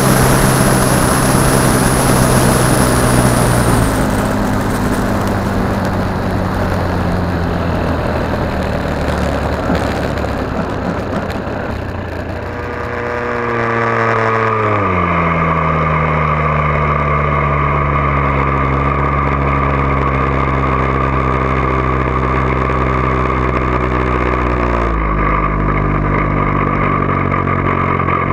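Great Planes Revolver 70 model airplane's O.S. engine and propeller running, heard from a camera on the plane with rushing air in the first few seconds. About halfway through the engine is throttled back and its pitch glides down, then holds steady; near the end it drops again to low revs as the plane is on the runway.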